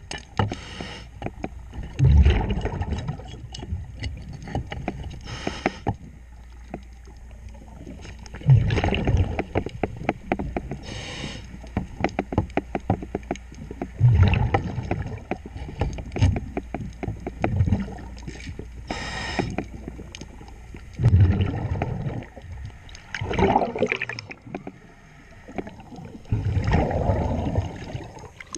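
A diver breathing underwater through a demand regulator: a short hiss on each breath in, then a loud gurgling burst of exhaled bubbles, about every six seconds, over a steady low hum.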